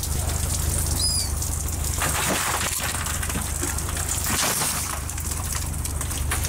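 A trawler's engine running with a steady low drone while the hanging cod-end nets are shaken out, the nets rustling and the shrimp catch falling onto the deck in a few short rattles from about two seconds in. A brief high squeak about a second in.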